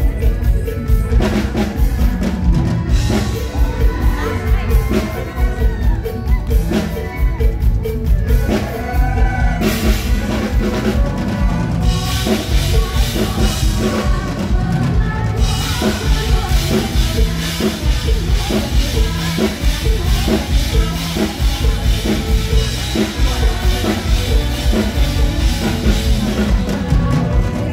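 A full live band playing on a concert PA: a steady kick-drum beat with bass and cymbals, and a sung melody at times. The cymbals grow brighter about twelve seconds in.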